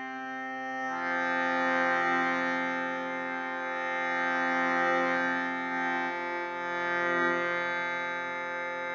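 Shruti box sounding a steady reed drone of several held notes, swelling and easing in loudness as the bellows is pumped. About a second in, more reeds open and the drone fills out lower down.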